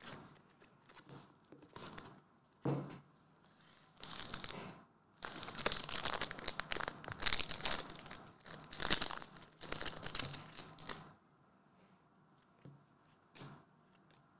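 A foil trading-card booster pack being torn open and its wrapper crinkled, in bursts of crackling rustle over about seven seconds. A single knock comes about three seconds in.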